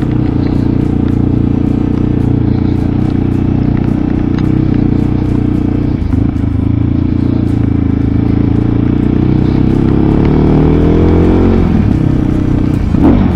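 Mondial RX3i Evo's 250 cc single-cylinder engine running at low road speed, heard from the rider's helmet. About ten seconds in it rises in pitch as the bike accelerates, then falls as the throttle closes near the end. Raindrops make scattered light ticks on the helmet camera.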